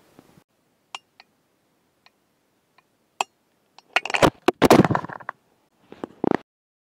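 Domestic sewing machine and fabric handling: scattered sharp clicks, then a dense clatter of the machine running about four seconds in, and a shorter burst just before the end.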